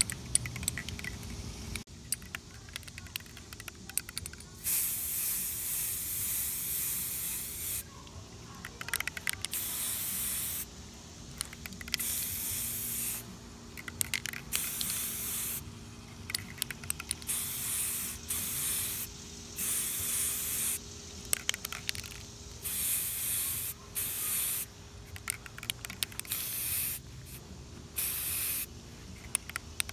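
Aerosol spray-paint can spraying onto a tumbler in about a dozen short hissing bursts, each one to three seconds long with brief pauses between, starting about four seconds in.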